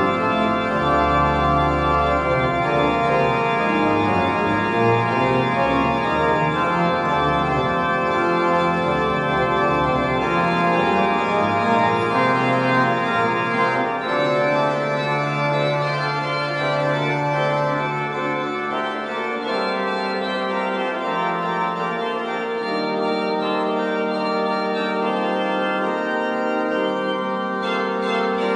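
Church pipe organ played with hands and pedals: an improvised postlude on a hymn tune in full sustained chords. A deep pedal bass sounds under it until about two-thirds through, then drops out and the texture thins.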